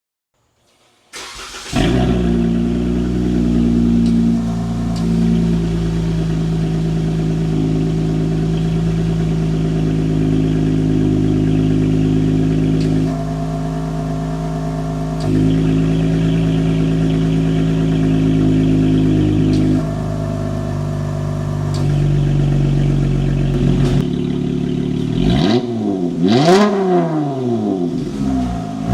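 Dodge Charger SXT's 3.6L V6 through a dual 2.75-inch stainless cat-back exhaust, starting up about a second in and settling into a steady idle. Near the end it is revved several times, the pitch rising and falling with each blip.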